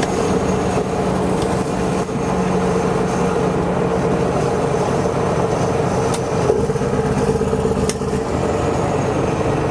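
Straight-piped Caterpillar C15 inline-six diesel, 550 hp, with no muffler, running steadily under way in a semi truck. The engine note dips briefly about two seconds in and again near eight seconds.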